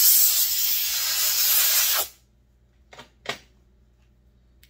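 Compressed-air blowgun hissing in one steady blast for about two seconds, blowing grit out of a chainsaw clutch drum after cleaning, then cutting off abruptly. Two short clicks follow about a second later.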